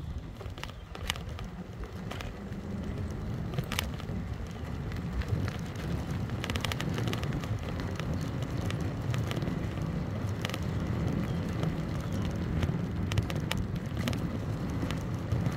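An e-bike being ridden: a steady deep rumble of wind and tyres that grows slightly after the first couple of seconds, with scattered sharp clicks and rattles.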